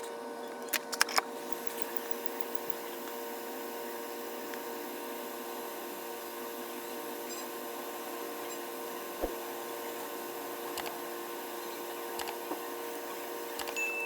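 Steady electrical hum from repair-bench equipment, with a few faint small clicks.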